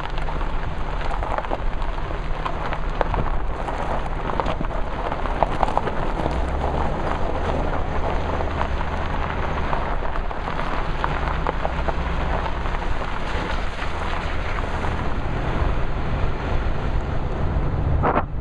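Tyres of a 1991 Toyota pickup rolling slowly over loose gravel, a dense steady crackle, with the truck's V6 engine running as a low drone underneath.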